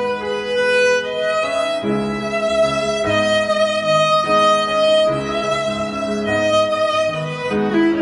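Background music: a violin-led bowed string melody with long held notes over a moving lower line.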